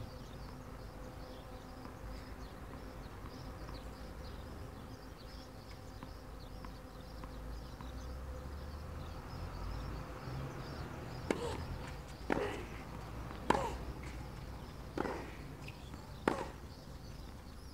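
Faint insects chirping over a low steady hum, then, about two-thirds of the way in, a tennis rally: sharp racket strikes on the ball about every second and a quarter.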